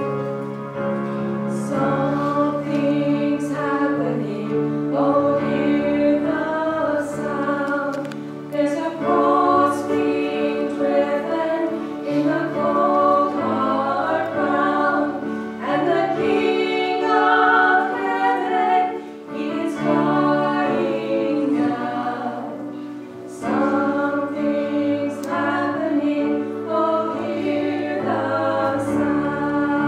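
Vocal trio of a man and two women singing a gospel song together into hand-held microphones, amplified through a church PA.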